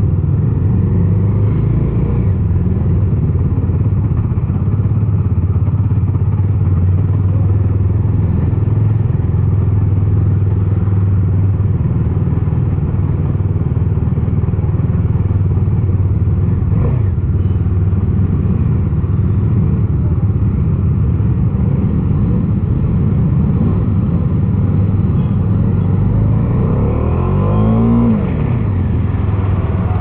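Bajaj Dominar 250 motorcycle's single-cylinder engine running steadily on the move, heard from the rider's position. Near the end the revs rise sharply and then fall away.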